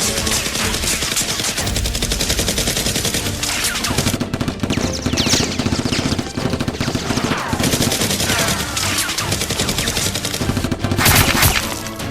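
Rapid automatic gunfire in long sustained bursts, with several falling whistle-like glides mixed in and a louder burst near the end.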